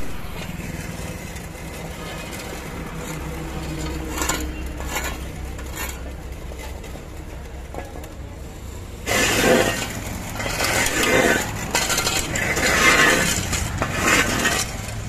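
Steel shovels scraping across the road surface and scooping loose asphalt patching mix, with metallic clinks and clatter, over a low steady engine hum. The scraping becomes denser and louder from about nine seconds in.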